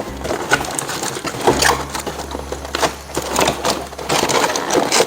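Irregular clicking and rattling of hard objects being handled, with a low steady hum for a few seconds in the middle.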